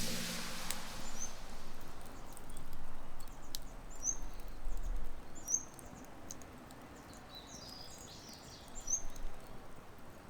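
Quiet outdoor ambience with a small bird chirping repeatedly in short high calls and a few faint clicks.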